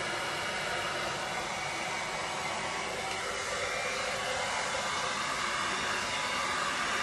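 Handheld hairdryer blowing steadily, getting a little louder partway through, as it pushes wet acrylic paint across a canvas in a Dutch pour.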